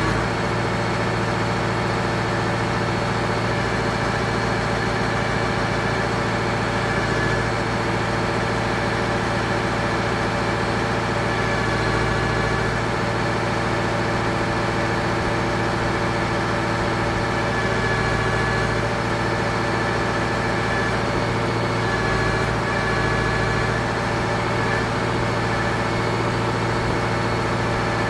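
Deutz DX 4.50 tractor's air-cooled diesel engine running steadily at low revs, with a faint high whine coming and going.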